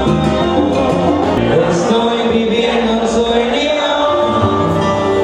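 Salsa band playing with a man singing lead.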